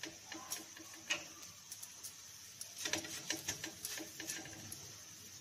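Bread slices frying in ghee on a hot iron tawa: a faint sizzle with small scattered crackles and ticks. Near the end come a few light taps as a slice is picked up and turned by hand.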